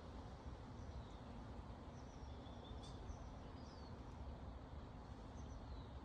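Quiet garden ambience: a few faint bird chirps, clustered in the middle, over a low steady background rumble.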